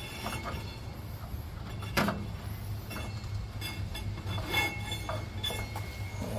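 Light metallic clinks and rattles of hands working a drive belt off a lawn tractor's engine pulley, with one sharp knock about two seconds in, over a low steady hum.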